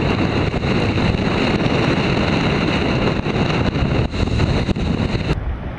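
Hurricane-force wind buffeting the microphone, a loud, dense rumbling rush with hiss. Near the end it abruptly drops to a quieter, duller rush.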